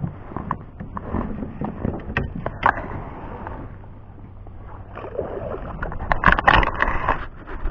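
Handling noise in a plastic kayak: knocks and rubbing as a camera is moved and set on its mount, loudest about six seconds in as an arm brushes past it.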